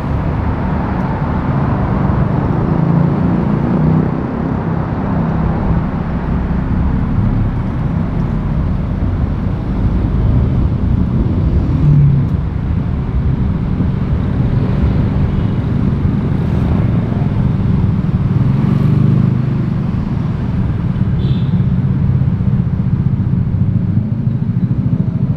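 Street traffic and road noise heard while driving: vehicle engines running and tyre noise, steady throughout.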